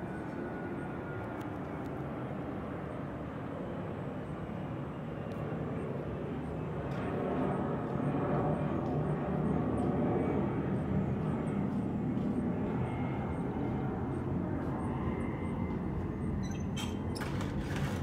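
A steady low outdoor rumble that swells to its loudest about halfway through and slowly eases off. A few sharp clicks come near the end.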